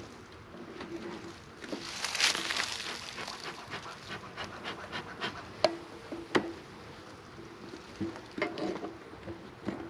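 Puffs of air from a beekeeper's bellows smoker, with honeybees from the opened hive buzzing at a low hum. A run of sharp knocks and clicks follows as the smoker and hive parts are handled.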